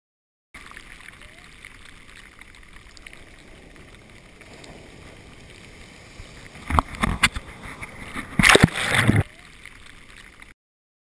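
Ocean surf heard from water level: a steady wash of foaming whitewater, with loud close splashes about seven seconds in and again around eight and a half to nine seconds. The sound starts about half a second in and cuts off suddenly about a second before the end.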